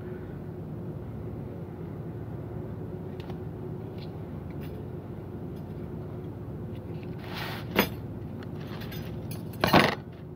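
Handling sounds at the table: a few light clicks and knocks over a steady low hum, then a sharp knock about eight seconds in and a loud brushing bump near the end as an arm passes close over the microphone.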